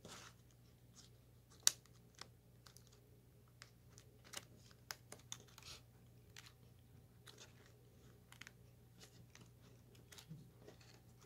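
Faint scattered clicks and crinkles of fingers working a laptop keyboard's flat ribbon cable into its connector, with one sharper click a couple of seconds in, over a faint steady low hum.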